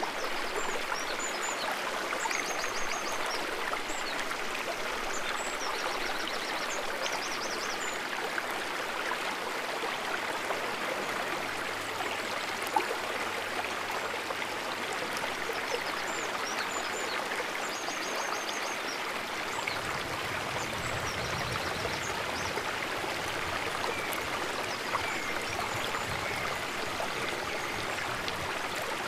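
Shallow stream water flowing steadily, an even rushing and trickling. A few short high chirps sound at times, and a deeper rumble joins about two-thirds of the way through.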